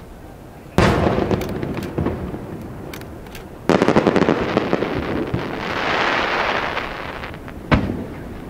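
Fireworks bursting: a loud bang about a second in, another about halfway through followed by dense crackling and a hiss that swells and fades, then a single sharp bang near the end.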